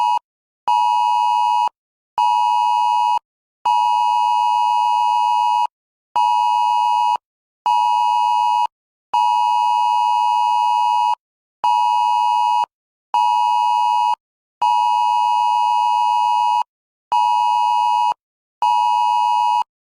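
Electronic emergency-alert test tone from a TV broadcast: a steady, buzzy beep in a repeating pattern of two one-second beeps followed by one two-second beep, each separated by a short gap.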